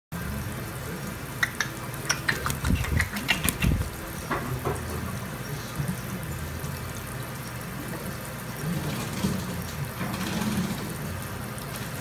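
Tap water running steadily into a sink while an African grey parrot bathes under it, with a flurry of sharp splashes from its wings flapping in the water between about one and four seconds in.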